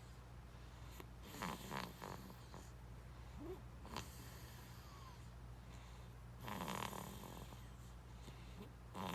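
Eight-month-old baby snoring softly in sleep: a few snoring breaths a few seconds apart, over a low steady hum.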